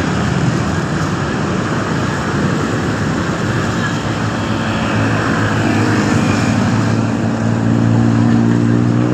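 Boat engine running steadily, growing louder and rising a little in pitch in the last few seconds.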